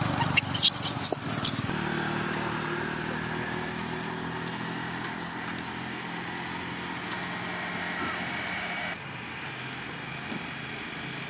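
A baby long-tailed macaque screams in a few sharp, high squeals over the first second and a half. After that a steady low engine hum carries on until it drops off about nine seconds in.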